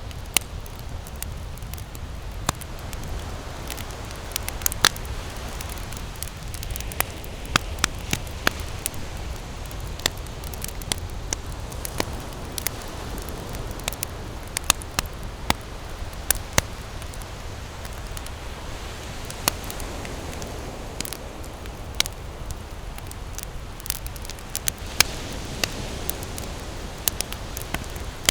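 Wood campfire burning, with frequent irregular sharp snaps and pops over a steady hiss of flames and a low rumble underneath.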